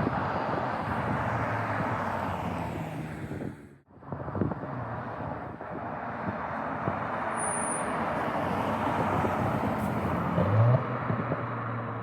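Audi S5 with its exhaust resonator deleted, heard from outside the car: the engine and exhaust run steadily with road noise, cutting out briefly about four seconds in. The engine note rises sharply once near the start and again about ten seconds in.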